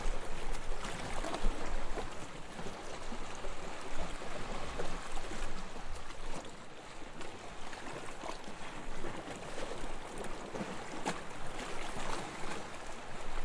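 Gentle waves washing onto a beach, a steady wash of surf with small irregular swells and the fizz of water running back over the sand.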